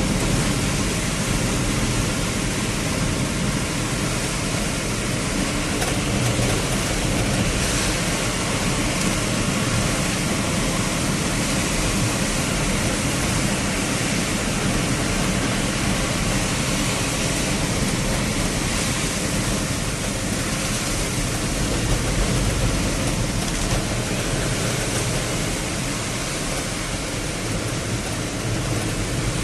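Steady, loud rushing noise of heavy rainfall while riding in a moving vehicle, with road and wind noise mixed in.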